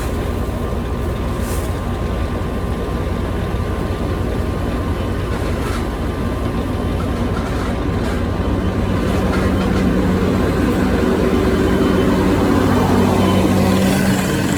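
Heavy machine engine running steadily, working harder and louder from about nine seconds in, as under load.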